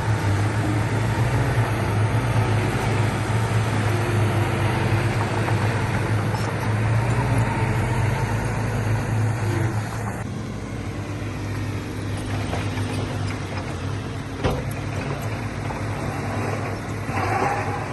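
Heavy diesel earthmoving machinery running steadily with a deep, even engine hum, easing slightly about ten seconds in, with one sharp knock near the end.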